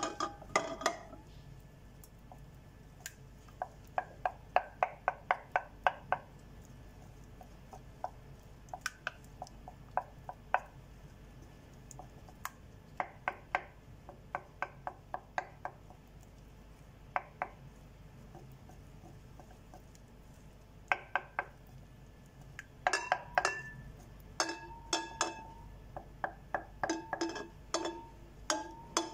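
Wooden spatula clicking and knocking against a glass bowl while stirring thick melting dark chocolate, in quick runs of taps with pauses between. In the later part several knocks ring briefly like glass.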